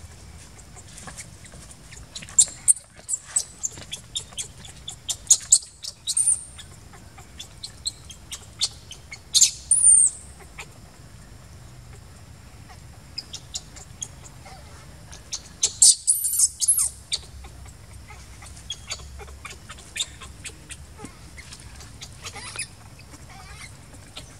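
Newborn macaque crying in short, very high-pitched squeaks that come in clusters, with the loudest bursts about two, six, ten and sixteen seconds in.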